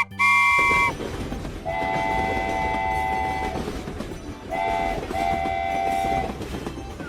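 Train horn sounding four steady chord-like blasts — a short one at the start, a long one about two seconds in, a brief toot, then another long blast — over the continuous low rumble of a train running on the track.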